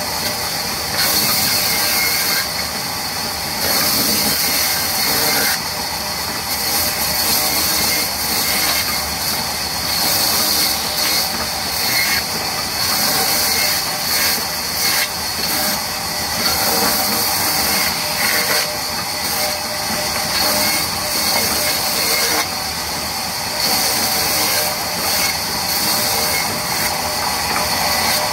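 Large vertical band saw ripping a wooden slab lengthwise. The blade's loud, steady hiss in the wood swells and eases every few seconds as the board is pushed through, over the steady hum of the running machine.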